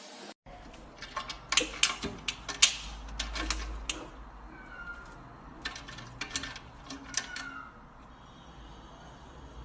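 Two quick runs of sharp clicks and knocks, the first about a second in and the second about halfway through, over a low steady hum.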